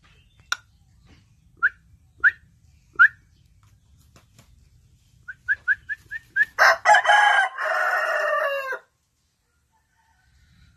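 Rooster crowing once, a loud call of about two seconds that starts just past the middle. Before it come a few short sharp chirps spaced about half a second apart, then a quick run of them.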